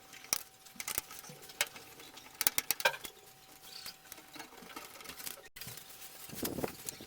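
Screws being worked out of a desktop computer case with a screwdriver: scattered small metallic clicks and scrapes, with a cluster of sharper clicks about two and a half to three seconds in.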